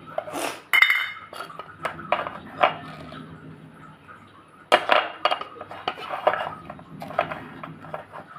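Metal spoon scraping and tapping in a tin of corn flour and clinking against a small glass bowl, with irregular clinks and scrapes throughout and a ringing clink about a second in. Later the spoon stirs the flour into liquid in the glass bowl.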